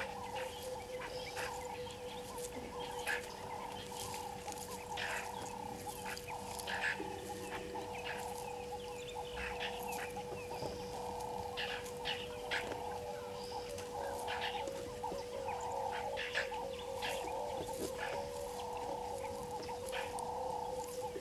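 Steady chorus of frogs at a waterhole, a constant tone with a pulsing trill under it, overlaid by many short, high bird chirps.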